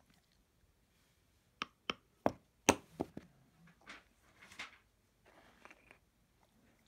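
A dog biting into an icicle: about six sharp cracks of the ice snapping come in quick succession between about one and a half and three seconds in, the loudest near the end of the run, followed by softer crunching and licking of the broken pieces.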